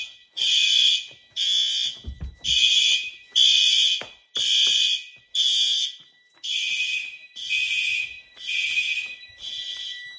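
Fire alarm system sounding in alarm, its sounders pulsing about once a second in a loud, high-pitched blare. The alarm was set off by a smoke detector tripping under a functional test with a lighter flame.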